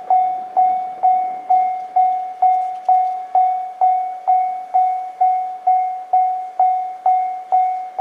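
Japanese level-crossing alarm ringing its repeated 'kan-kan' warning, one decaying bell-like note struck about twice a second at a steady pace, signalling that a train is approaching and the barriers are down.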